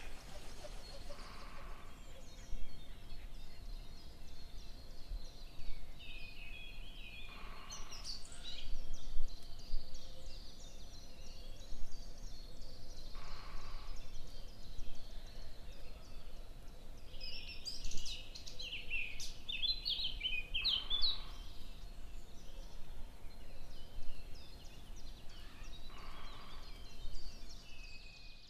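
Small birds chirping and twittering in scattered bursts, with two busier spells of chatter, over a steady outdoor background.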